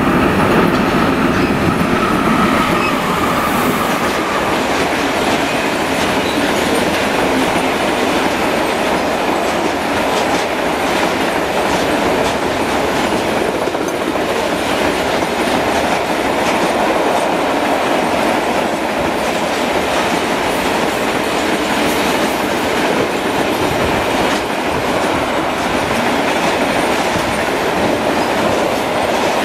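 Steady rumble and clatter of a long freight train of hopper wagons passing close by, the wheels clicking over rail joints. A faint high whine in the first few seconds.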